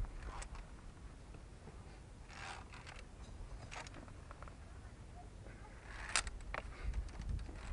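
Climbing gear and boots on rock during a via ferrata descent: scattered clicks and scrapes, a short scrape about two and a half seconds in and a sharp metallic click about six seconds in.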